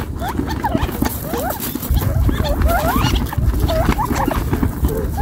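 A close flock of Gambel's quail feeding, giving many short soft contact calls, several a second and overlapping, with light clicks of pecking among gravel. A low rumble comes in about two seconds in.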